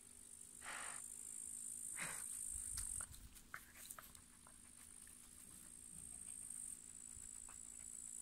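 Insects trilling in a steady, high-pitched drone across the field. Over it come a few short rustling bursts, about a second in and again at two seconds, and some faint clicks, from dogs digging and sniffing in dry cut grass.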